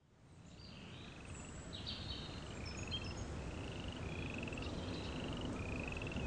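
A natural soundscape fades in: a chorus of short, rasping, pulsed animal calls repeating a little faster than once a second, with scattered higher chirps over a low rumble that grows louder.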